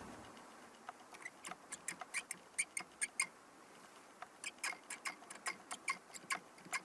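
Irregular sharp clicking from the driver's seat area of a Suzuki Hustler, several clicks a second with a short pause about halfway. This is the unexplained abnormal noise (異音) from the seat.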